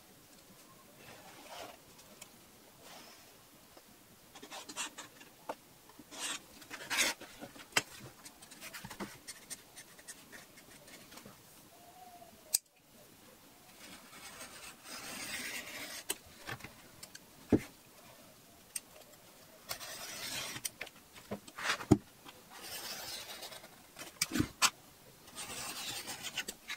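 A metal pen scratching lines along a steel ruler on kraft pattern paper, with paper rustling and short taps and clicks as the ruler is set down and shifted.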